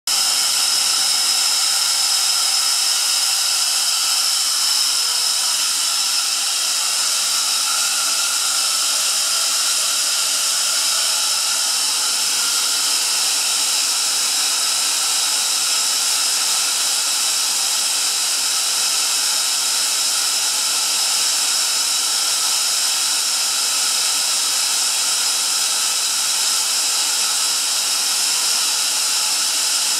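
Atlas Copco ZR90VSD-FF two-stage, oil-free, variable-speed rotary screw air compressor running on load at about 6.7 bar: a steady rushing hiss with a high whine over it.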